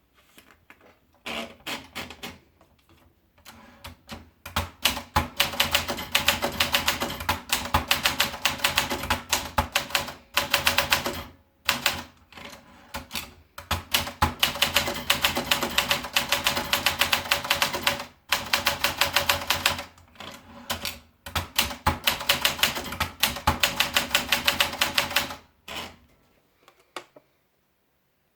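Olympia Splendid 33 manual portable typewriter being typed on: fast runs of key strikes lasting a few seconds each, broken by short pauses, stopping about a second before the end.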